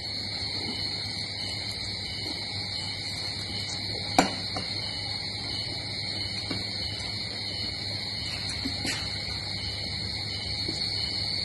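Steady high-pitched drone of crickets, with a single sharp click about four seconds in and a few faint small ticks later.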